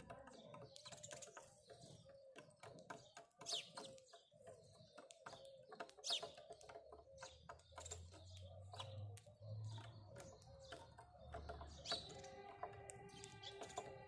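House sparrows pecking seed off a wooden board, heard as a quick, irregular run of faint small clicks, with a few short, sharp chirps that fall in pitch.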